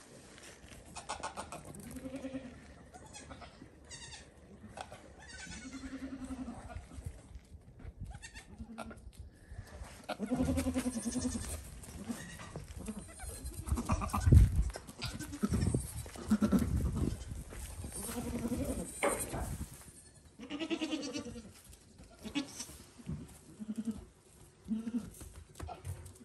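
Goats bleating, a string of short calls every second or few, with low thumps and rumbling about halfway through.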